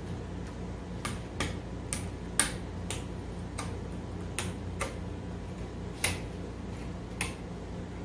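Panel-mount rotary selector switches and pushbuttons on an electric brewing control panel clicking as they are turned and pressed: about a dozen sharp clicks at uneven intervals, over a steady low hum.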